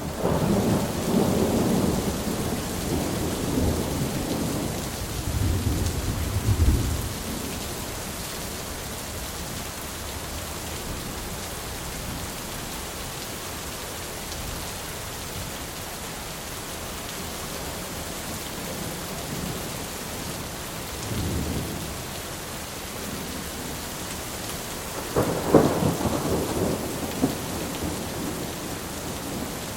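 Thunderstorm: steady rain falling, with rolling thunder. A long rumble fills the first seven seconds, a short low rumble comes a little past twenty seconds in, and a louder peal comes about twenty-five seconds in.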